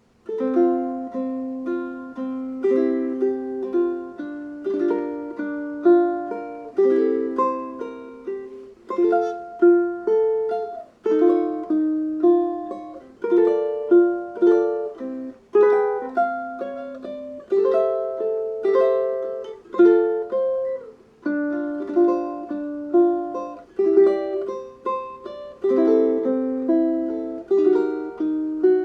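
Seilen SLT-104vm tenor ukulele with a vintage Honduran mahogany body, played solo fingerstyle: a plucked melody over chords, with each note ringing and decaying. The playing begins suddenly just after the start.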